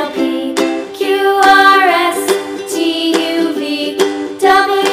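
Background music: a song with a sung melody over a plucked-string accompaniment.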